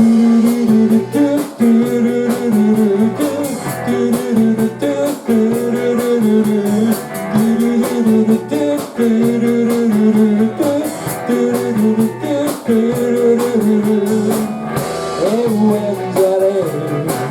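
Live rock band playing an instrumental passage between sung lines: guitar over a steady drum beat.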